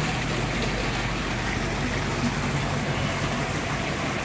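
Steady rushing of water in a large aquarium tank, with a low hum beneath it.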